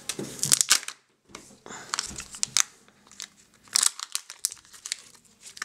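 A Kinder Joy egg being peeled open by hand: its foil seal and plastic shell crinkling in short, irregular bursts with brief pauses between them.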